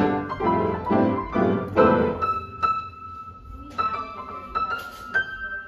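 Upright piano played four-handed: full chords struck in quick succession for about two seconds, then sparse single high notes that ring and fade.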